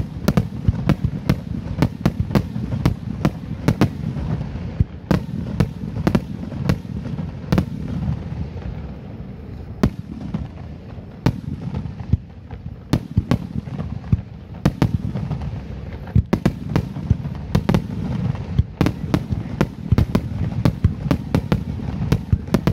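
A fireworks display: a rapid barrage of aerial shells launching and bursting, many sharp bangs and crackles close together over a continuous low rumble. The bangs thin out for a few seconds in the middle, then come thick again.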